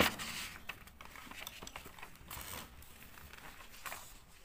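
Textbook pages being turned and handled: an irregular, soft rustling and crinkling of paper, loudest in the first second.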